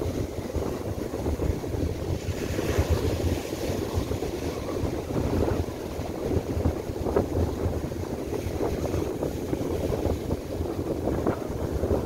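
Force-7 gusty wind buffeting the microphone in an uneven low rumble, over surf breaking and washing up a sandy beach.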